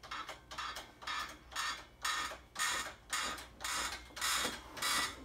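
Manual Hoyer patient lift's hydraulic pump handle being worked, a rasping stroke about twice a second as the sling is raised.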